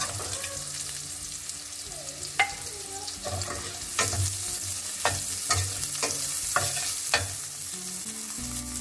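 Diced boiled potatoes sizzling in ghee in a stainless steel pan, with a slotted metal spatula stirring them and clicking against the pan about seven times from a couple of seconds in.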